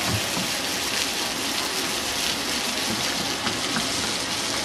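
Water jets of a ground-level plaza fountain spraying and splashing onto the paving: a steady, even hiss.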